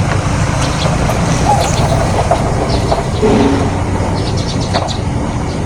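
Steady low rumble of a running motor vehicle engine, with scattered light clicks and rattles over it.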